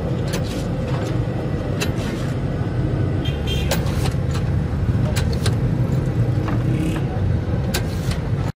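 Steady rumble of street traffic, with irregular sharp clicks and knocks from a cast-iron lever-press potato chip cutter being worked by hand as potatoes are pushed through its blade grid.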